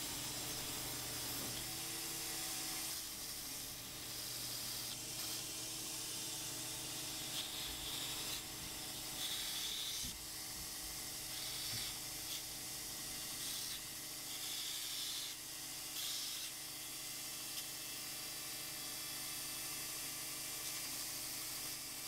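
Power sander running with a steady hum and hiss, with short scratchy bursts every second or two as the edge of a KYDEX thermoplastic piece is pressed against the abrasive to smooth and shape it.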